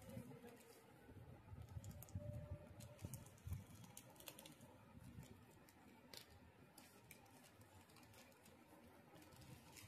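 Near silence, with faint scattered clicks and soft low thumps.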